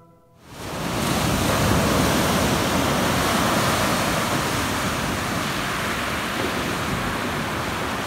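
Ocean surf: waves breaking and washing up onto a gravel beach, a steady rush of water that swells in about half a second in.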